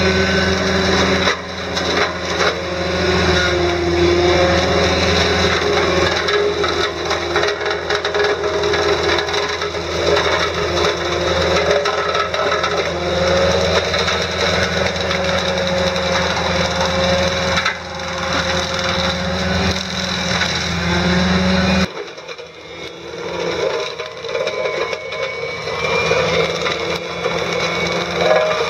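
Brown Raptor prototype forestry mulching head, driven by a 13 GPM hydraulic motor on a CAT 305.5 mini excavator, spinning and chewing through saplings and brush, with splintering, cracking wood over the steady hum and whine of the excavator's engine and hydraulics. About 22 seconds in the low engine hum drops away abruptly and the cutting is quieter and more uneven.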